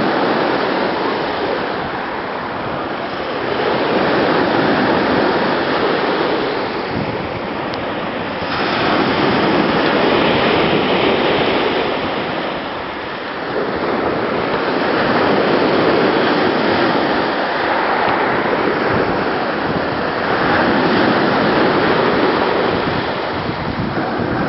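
Sea surf: waves breaking and washing on the shore, the rush swelling and falling back about every five or six seconds.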